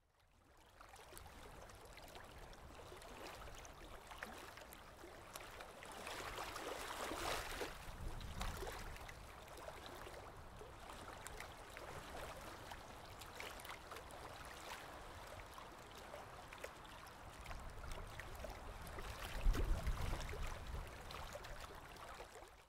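Sea water washing and lapping, a steady rush that fades in at the start, swells twice and fades out at the end.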